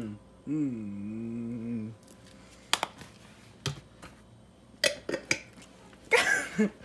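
Plastic condiment bottles and a plastic cup being handled on a counter: a few scattered light clicks and knocks, with a short hum in the first two seconds and a brief rushing noise near the end.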